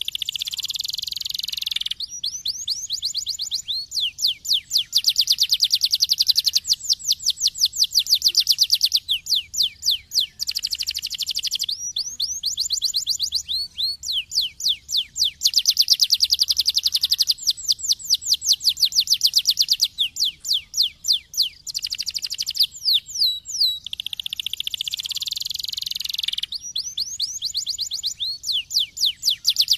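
Domestic canary singing continuously: fast trills of rapidly repeated high notes alternating with buzzy rolls, each phrase lasting a few seconds before switching to the next.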